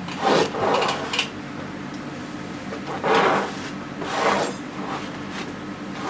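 Oil-paint brush scrubbing across a stretched canvas: about five short, scratchy strokes at uneven intervals, the loudest a little after three seconds in.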